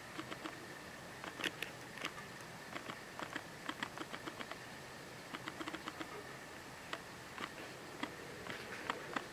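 Scattered light clicks and taps in quick, irregular runs over a faint steady hiss.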